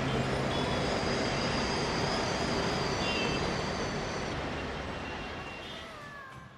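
City road traffic: a steady wash of engine and tyre noise from passing auto-rickshaws, motorbikes and cars, fading out near the end.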